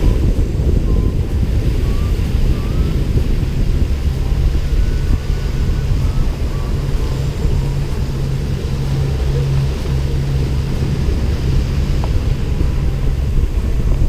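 Speedboat engine running steadily under way, a continuous low drone, with wind buffeting the microphone.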